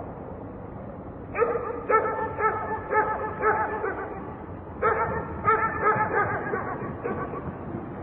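A dog barking in two runs of quick barks, about two a second, the first starting about a second and a half in and the second near the middle, over a steady hum of distant traffic.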